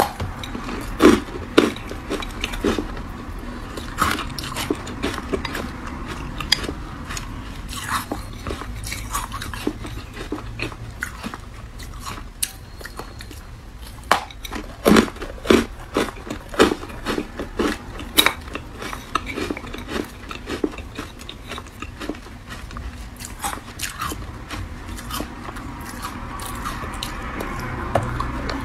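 A person biting and crunching ice cubes coated in matcha powder: irregular sharp cracks of breaking ice, in bunches, with chewing between them.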